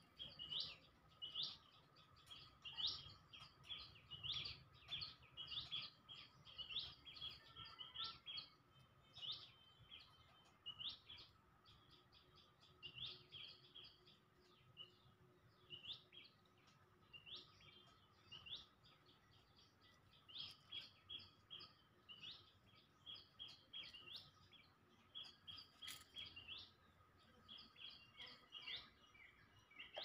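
Small birds chirping faintly: short, sharp high calls repeated in irregular runs.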